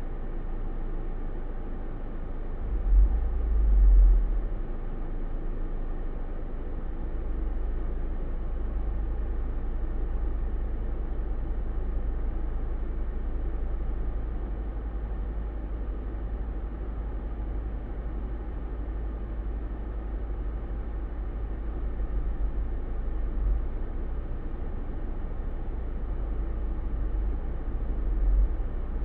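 Steady deep rumble with no speech, swelling briefly about three seconds in and again near the end.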